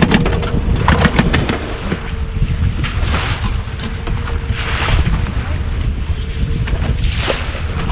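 Wind on the microphone and the wash of the sea around a small fishing boat, over a steady outboard-motor hum. There are a few sharp clicks in the first second or so and short swells of water noise later on.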